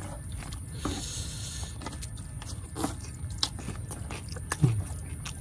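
Close-miked eating of ketoprak: chewing and small mouth sounds, with a spoon and fork clicking and scraping in the food on its paper wrapping. A brief rustle comes about a second in.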